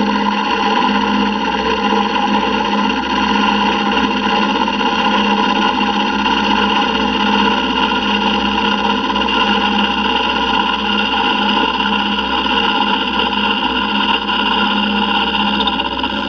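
Vertical milling machine running, its end mill cutting a slot through a metal T6 turbo exhaust flange plate in a steady, continuous pass: an unchanging mix of motor and spindle hum and cutting noise.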